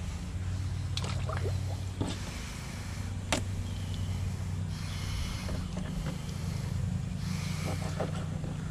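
Fillet knife cutting and scraping along a sheepshead fillet on a plastic cutting board, with a few sharp clicks and short scraping hisses, over a steady low rumble.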